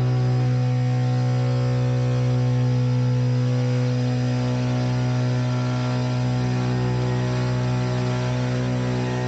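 Electric push propeller of an Archaeopteryx hang glider running steadily while the glider taxis, a loud, even low drone with a hum of higher overtones and no change in speed.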